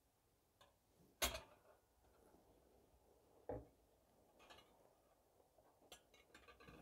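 A metal slotted spatula knocking and scraping against an empty stainless steel frying pan a few times, with the loudest knock about a second in and faint ticks near the end. Between the knocks there is near silence.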